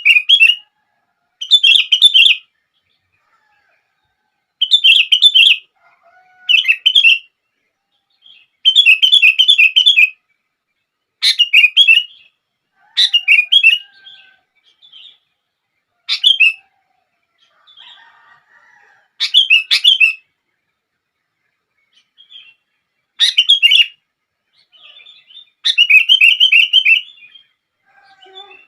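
Sooty-headed bulbul (kutilang) singing: about eleven short phrases of rapid, chirpy notes, one every two seconds or so, with silent gaps between them.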